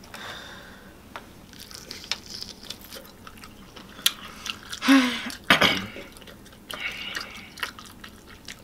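Close-miked eating of fried chicken: wet smacking, sucking and chewing as meat is pulled off the bone, with many small clicks and crackles and a louder pair of mouth sounds a little past halfway.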